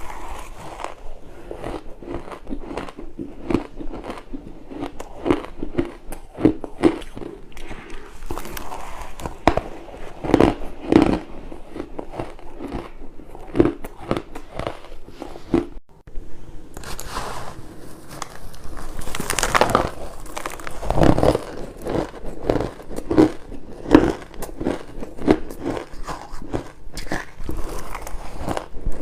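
Close-miked bites into crushed and shaved ice, a steady run of sharp, crackly crunches one after another, with a short break a little past halfway.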